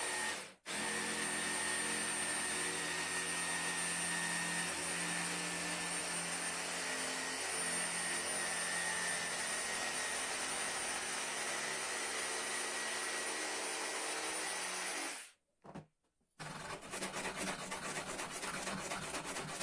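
Jigsaw cutting a rounded curve in an MDF panel: a steady motor-and-blade noise with a constant high tone. It cuts out briefly near the start and again about fifteen seconds in, and over the last few seconds it sounds rougher and rapidly pulsing.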